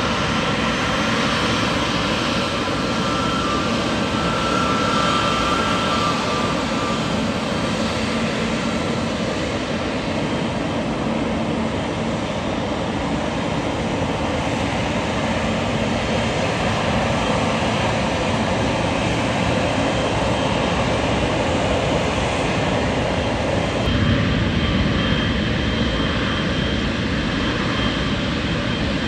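Jet airliner engines running, a steady loud rush with a thin whine in the first several seconds; for most of it the aircraft is a McDonnell Douglas MD-11 freighter. About 24 seconds in the sound changes abruptly to another jet.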